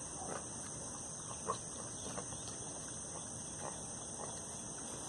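Pigs grunting while they graze: a handful of short, scattered grunts, the sharpest about a second and a half in.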